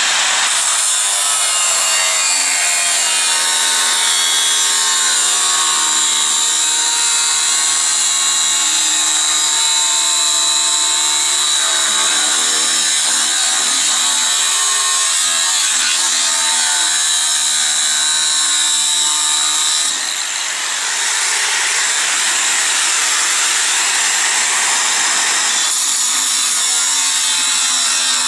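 Angle grinder cutting through 6 mm steel plate: a loud, steady grinding hiss over the motor's whine, whose pitch wavers as the load changes, easing briefly about twenty seconds in.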